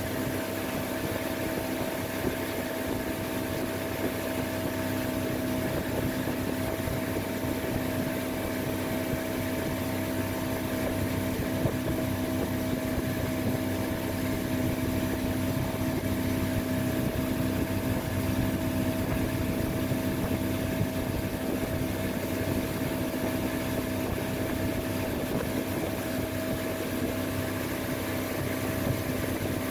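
Motorboat engine running at a steady cruising speed, an even drone that does not change, with wind and water noise from the boat's movement.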